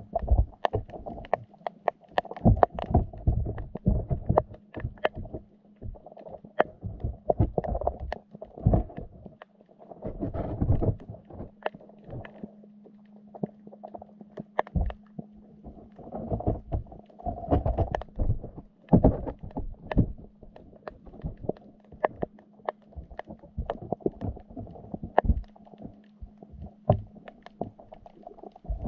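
Muffled underwater sound from a GoPro in its waterproof housing inside a wire fish trap: irregular low thumps and knocks with scattered sharp clicks, over a steady low hum.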